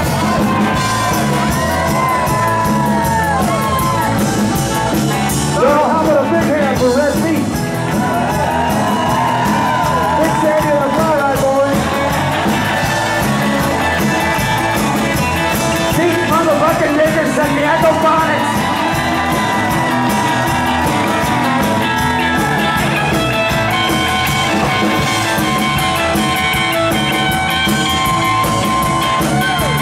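Live band playing: a man singing into a microphone over electric guitars and a drum kit.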